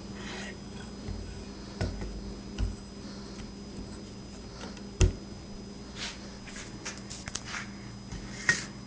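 Handling noise: scattered clicks and light knocks as the pistol and the phone filming it are moved in the hands, the sharpest knock about five seconds in, over a steady low hum.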